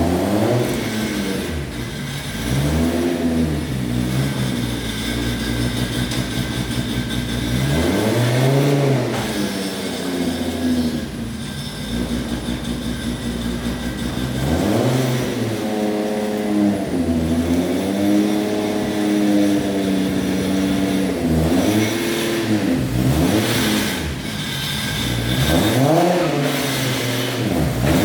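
Toyota Chaser JZX100's 1JZ straight-six engine revving again and again, its pitch climbing and dropping about eight times.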